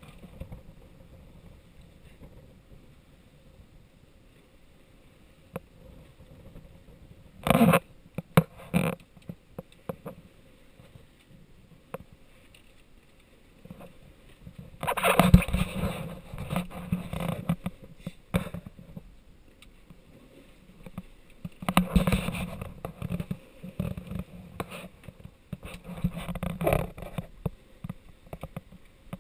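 Wind and sea noise aboard a sailing yacht under way in a choppy sea: a low steady rush broken by several louder bursts of gusting wind and splashing water, each lasting from under a second to a few seconds.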